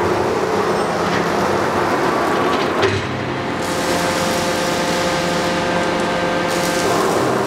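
CNC punch press running: a steady mechanical hum with one sharp clack about three seconds in, followed by a whine of several steady tones lasting about four seconds while the sheet-feed worktable moves.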